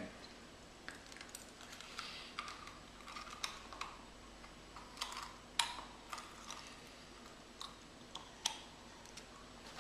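Somnowell anti-snoring dental appliance being fitted over the teeth: irregular small clicks and wet mouth smacks, the sharpest a little past halfway and again about eight and a half seconds in.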